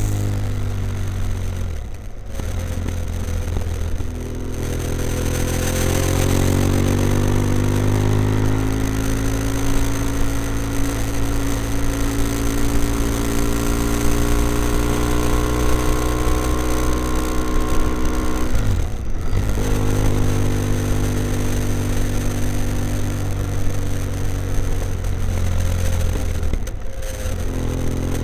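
BMW F800ST's parallel-twin engine running through a Blue Flame twin-port exhaust with both baffles in, as the motorcycle rides along. The engine note rises a few seconds in and then holds steady, dropping away briefly three times: about two, nineteen and twenty-seven seconds in.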